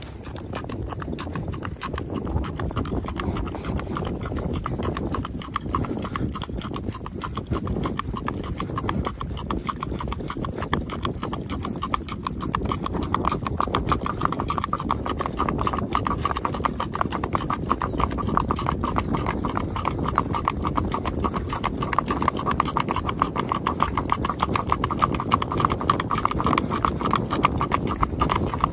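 Horse's hooves clip-clopping in a fast, even rhythm as it is ridden at a brisk gait, first along a gravel shoulder and then on a paved road. The hoofbeats get louder from a little before halfway through.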